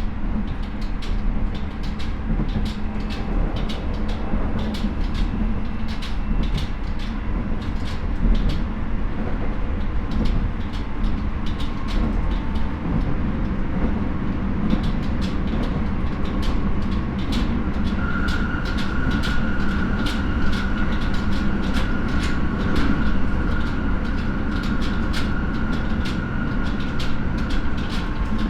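Interior running sound of a Keio 9000 series electric train car (Hitachi IGBT VVVF drive) travelling at speed: steady wheel-and-rail rumble with frequent rail clicks. A steady high tone comes in about two-thirds of the way through and holds.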